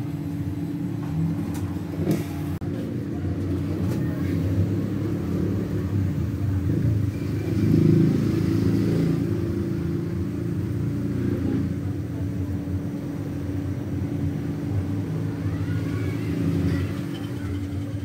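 Air compressor running steadily, pumping air into a refrigerator's sealed system to pressurize it for a leak test while the pressure climbs toward 175 psi.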